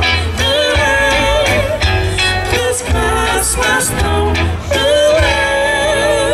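Live band playing a song: a woman singing lead into a microphone over acoustic guitar, electric bass and drums.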